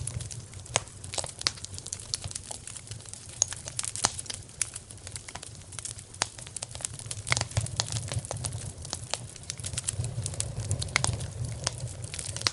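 Wood fire in a fireplace crackling, with frequent irregular pops and snaps over a low, steady rumble of the flames.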